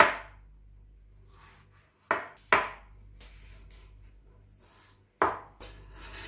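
Chef's knife cutting peeled peaches on a bamboo cutting board. The blade knocks sharply on the board once at the start, twice about two seconds in and twice about five seconds in, with soft cutting through the fruit between the knocks.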